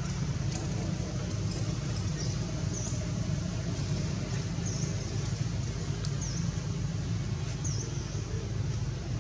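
Steady low rumble like distant road traffic, with short high chirps repeating every second or two.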